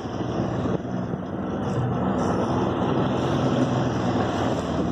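A flats boat's motor running steadily under way, with an even rush of wind and water noise over it.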